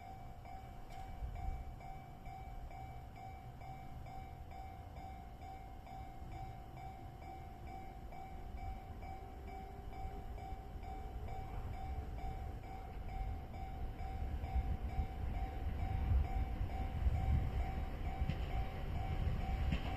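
Japanese level-crossing warning bell ringing in rapid, evenly repeated dings, while the rumble of an approaching train on the Joetsu Line grows louder over the last few seconds.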